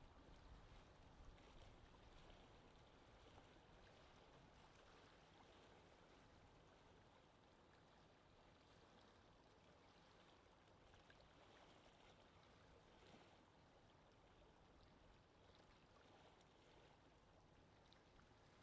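Very faint, steady rush of wind ambience, an even hiss with no distinct events, easing slightly over the first several seconds.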